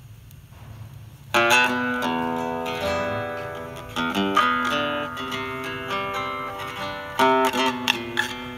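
Music played back through a pair of freshly serviced Altec 802-8G compression drivers. After a moment of low hum, a guitar intro starts suddenly about a second and a half in, with plucked notes.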